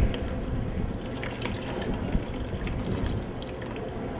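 Water dripping and trickling into a bucket of descaling solution, with scattered small drips and splashes, as the pump and hose are lifted out of it.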